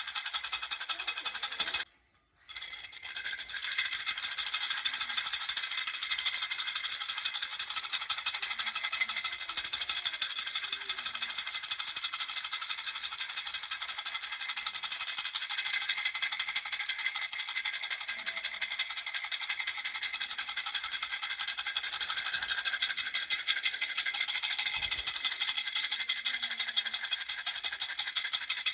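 Baby rattle shaken rapidly and steadily, a dense, even hiss of small beads. It cuts out briefly about two seconds in, then resumes.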